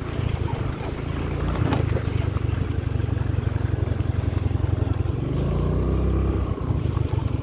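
Wind buffeting the microphone of a camera carried on a bicycle ride over a dirt track: a steady low rumble, with a sharp click about two seconds in.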